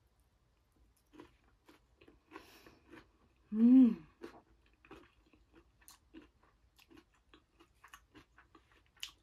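Close-up mouth sounds of a person eating curry and rice: soft chewing, small smacks and clicks throughout. About three and a half seconds in comes a short, loud hummed "mmm" of enjoyment that falls in pitch.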